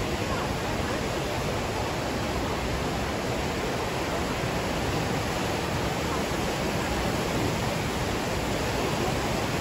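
Steady rush of whitewater from a fast-flowing mountain creek tumbling through a narrow rock canyon.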